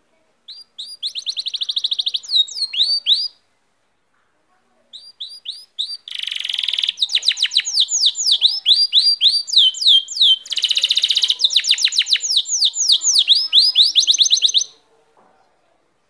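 Domestic canary singing: a short phrase of fast trills, a pause of about a second and a half, then a long song of about ten seconds built of rapid repeated notes and rolling trills, with two dense buzzing rolls in it.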